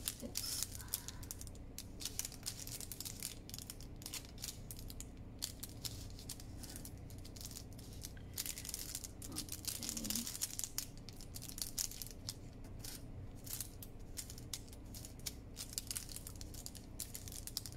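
Parchment baking cup crinkling and rustling as it is folded and creased flat by hand, in irregular crisp crackles.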